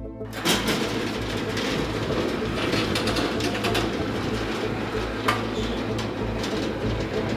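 Train running, a steady rattling rumble with occasional sharp clacks, cutting in suddenly about a third of a second in over a steady low hum.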